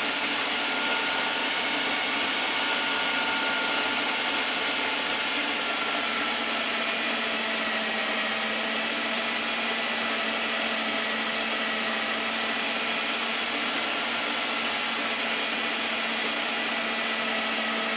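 Countertop food processor motor running steadily on a low dough setting, its blade mixing almond-flour pasta dough as water is added.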